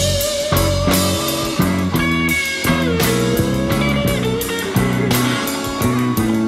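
Live electric blues jam on electric guitars, a Flying V and a Stratocaster, over a steady beat. A lead guitar holds one long bent note that sags in pitch about midway and climbs back up.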